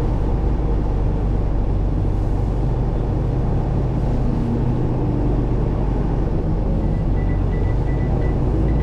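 Truck's diesel engine running steadily, heard from inside the cab as a low drone. Near the end a rapid high beeping starts, about three beeps a second.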